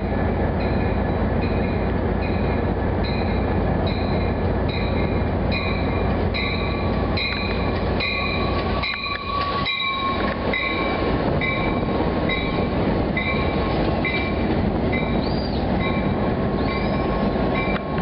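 Amtrak Cascades Talgo passenger train rolling past close by with a steady rumble. A bell rings about one and a half times a second, and a steady high squeal from the wheels or brakes comes in about seven seconds in, with a few short squeaks near the end.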